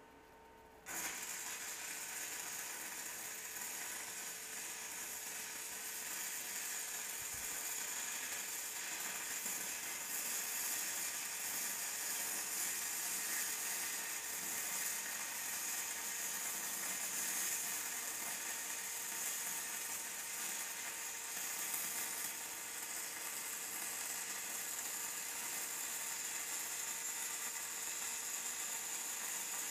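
Shielded metal arc (stick) welding with a 3/32-inch 6010 electrode on mild steel plate: the arc is struck about a second in and then burns with a steady crackling hiss.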